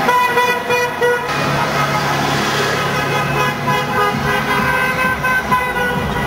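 Vehicle horns tooting in several pitches as cars drive past, over engine and road noise; one tone is held for about the first second.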